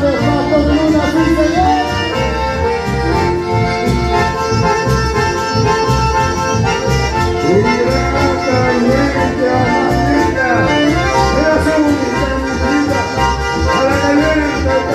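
Band music with an accordion carrying the melody over a steady bass-and-drum beat. There is no singing.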